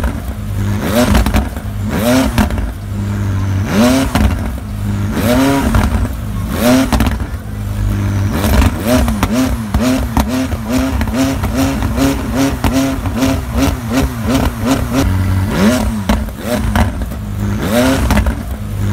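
McLaren 600LT's twin-turbocharged V8 engine being revved in repeated throttle blips, each rev rising and dropping back. The blips come about a second apart, then quicken to about two a second in the middle before slowing again.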